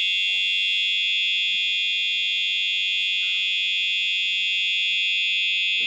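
Alarm bell ringing: a loud, steady, high-pitched ring at an even level.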